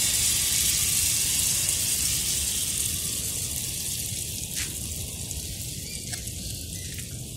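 Thick urad dal and rice batter sizzling in hot coconut oil in a cast uruli as it is poured in and pressed flat; the hiss slowly dies down, with a few light taps from the saucepan against the batter in the second half.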